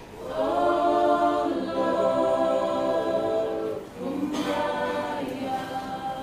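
Unaccompanied choir singing a slow hymn in harmony, with long held chords and a short breath near the middle.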